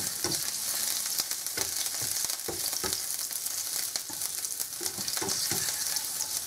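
Chopped garlic sizzling and crackling in hot oil in a nonstick frying pan, with a plastic spatula scraping and stirring it around the pan. It is a steady hiss full of quick pops, the garlic frying until it starts to turn golden.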